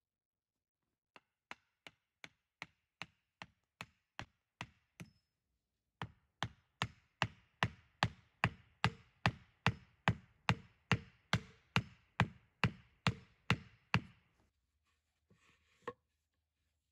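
Chopping: a blade striking wood in an even rhythm of about two and a half strokes a second. About ten lighter strokes come first, then after a short pause about twenty louder ones.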